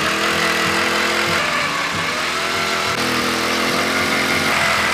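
Power ice auger running steadily as it drills through lake ice, its motor note shifting slightly a couple of times as the load changes.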